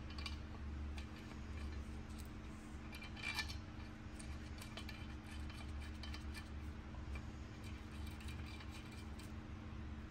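Light metal clinks and small clicks of a valve spring compressor being set by hand onto the valve springs of a Hemi cylinder head, with a small cluster about three seconds in, over a steady low hum.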